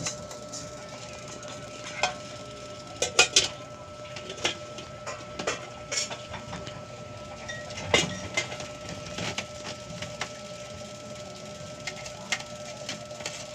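Light clicks and taps of a plastic enclosure being handled, with a cluster of sharper knocks about three seconds in and a strong one about eight seconds in, over a faint steady hum.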